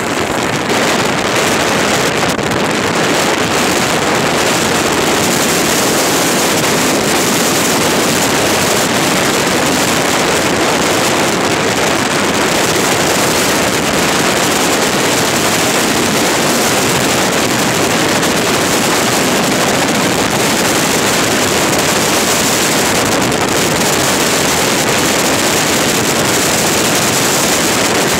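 Steady rushing noise of a vehicle driving on a dirt road, with wind blowing over the microphone.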